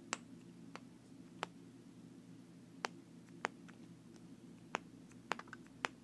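A small yellow fidget toy being pressed and worked in the hand, giving about eight sharp clicks at irregular intervals.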